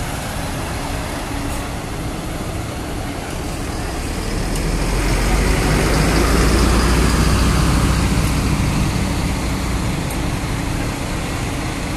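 Mercedes-Benz coach driving slowly past, its diesel engine rumble swelling as it comes alongside, loudest about six seconds in, then easing as it pulls away.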